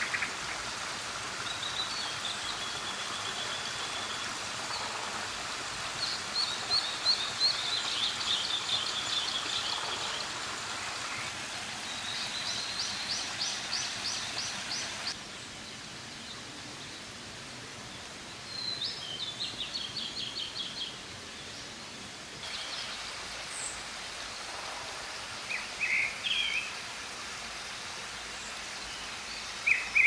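Several songbirds singing, each a rapid trill lasting a few seconds, over the steady rush of a mountain stream. The background drops in level about halfway through.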